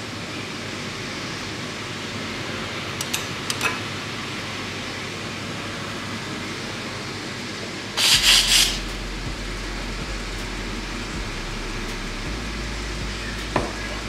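La Marzocco espresso machine's steam wand purged: one short, loud hiss of steam about eight seconds in, lasting under a second. A few light clicks come around three seconds in and once near the end, over a steady background hiss.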